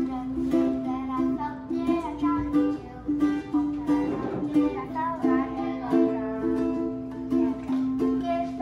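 Light ukulele music: quick plucked notes at changing pitches over one steady held note.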